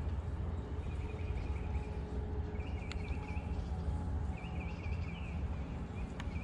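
Outdoor ambience: short high trilling calls repeat in bouts about a second long over a steady low rumble, with two faint clicks, one about halfway through and one near the end.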